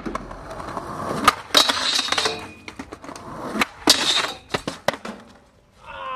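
Skateboard deck and wheels hitting the ground in a run of sharp knocks and clacks. The loudest come about a second and a half in and again near four seconds.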